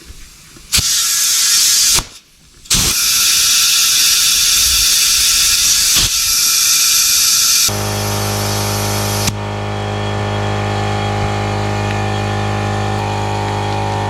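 Compressed air hissing loudly into a trailer tire whose bead has not yet sealed, so the air rushes out past the rim; it blows for about a second, stops briefly, then runs for about five seconds more. Then a steady low hum sets in and carries on as the hiss dies down.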